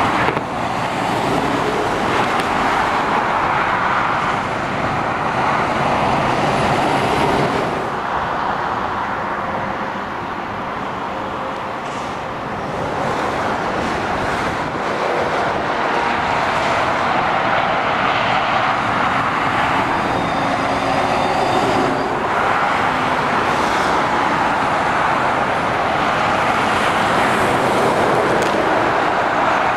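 Motorway traffic of lorries and cars passing below, a steady rush of tyre and engine noise. It eases off a little for a few seconds partway through, then builds again as the next lorries approach.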